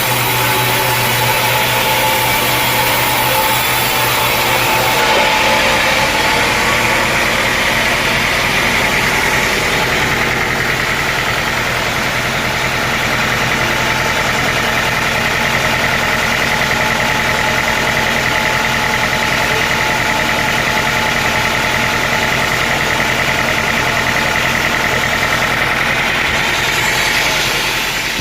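Sawmill engine and saw running steadily and loudly. A harsher, brighter sawing sound in the first five seconds eases off into the steady running of the machine.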